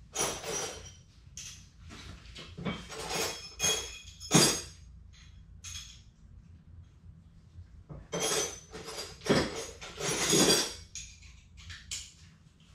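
Metal tool parts clinking and rattling in several short bouts, the sharpest knock about four seconds in. These are pieces of a bearing driver kit being handled and a driver disc tightened onto its handle.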